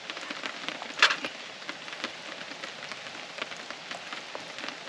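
Steady rain falling, with many scattered drops ticking throughout and one sharper, louder tap about a second in.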